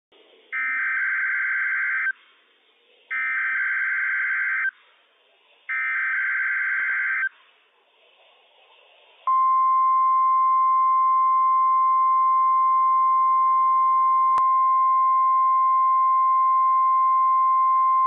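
NOAA Weather Radio test signal: three identical bursts of SAME digital header data, each a harsh warbling screech about a second and a half long with short pauses between them. About nine seconds in, the steady 1050 Hz warning alarm tone begins as one unbroken high tone, with one faint click partway through.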